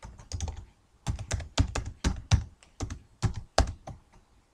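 Typing on a computer keyboard: a string of about fifteen separate keystrokes at an uneven pace as a file name is typed.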